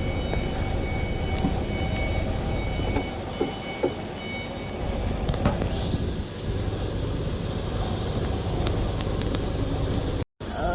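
Steady low rumble of machinery running in the background, with faint high steady tones in the first half and a few light clicks; it breaks off briefly near the end.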